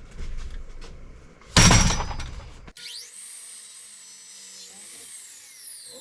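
Light knocks of lumber being handled, then a loud crash of a thrown wooden board landing about a second and a half in. The sound then cuts off abruptly to a quieter layer of high, slowly falling tones.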